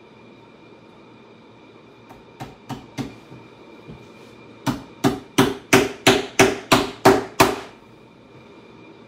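Hand hammer striking a saddle's seat strainer as it is fastened down: a few light taps, then a quick run of about nine harder blows, roughly three a second.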